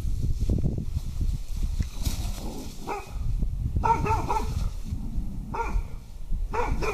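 Welsh springer spaniel barking at a coverall that has been suddenly raised in front of it as a startle test. The short barks begin about three seconds in and come roughly once a second.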